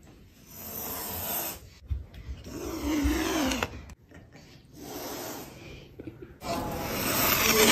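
Serval hissing in four long, breathy bursts with short gaps between them, a low wavering growl under the second.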